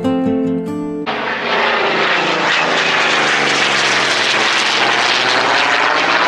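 Guitar music for about the first second, then a sudden cut to the loud roar of a jet aircraft flying overhead, its tone sweeping as it passes.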